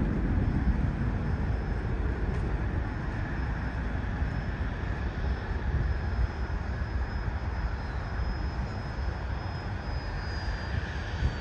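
Jet airliner on final approach to land, its engines a steady distant rumble with a faint high whine that drops slightly in pitch near the end.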